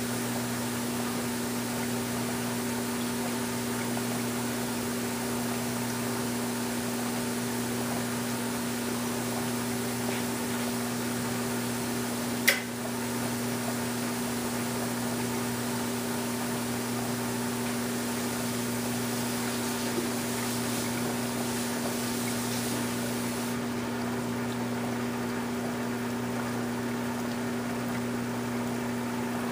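Steady low hum and hiss of reef aquarium pumps and circulating water. A single sharp click comes about twelve seconds in.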